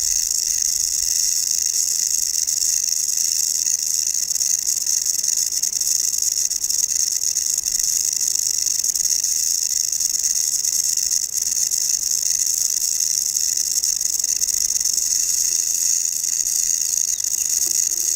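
Rattlesnake shaking its tail rattle: a continuous, steady high-pitched buzz.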